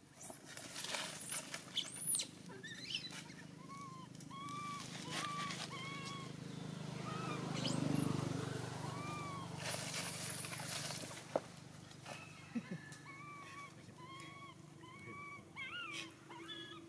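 Many short animal calls, each rising and falling in pitch, repeat throughout, in bunches of several a second at times. A low hum swells and fades in the middle, and there is a brief rustle of leaves a little later.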